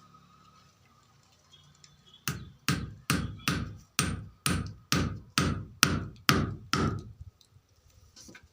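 Hammer driving a nail, about a dozen steady blows at some two a second, each with a short ring, starting about two seconds in and stopping about seven seconds in.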